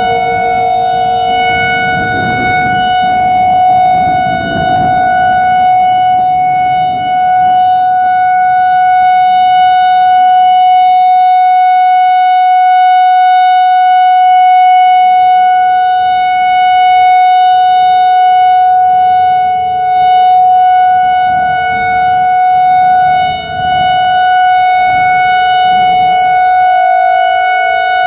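Whelen WPS-4004 electronic outdoor warning siren sounding a steady tone during its monthly test. It is loud and holds one pitch, with no rise or fall.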